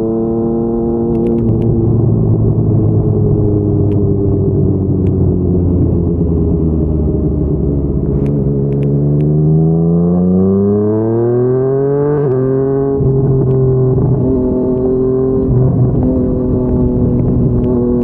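Yamaha MT-09's three-cylinder engine through a Yoshimura R55 slip-on exhaust, cruising steadily under way. About eight seconds in the revs climb smoothly for around four seconds, then drop sharply at an upshift and settle back into a steady cruise.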